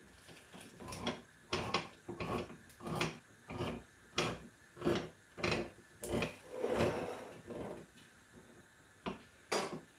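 Hand-held can opener turned round the rim of a metal tin, a short click with each turn of the key, about one every half second. It stops about eight seconds in, then gives two more clicks near the end.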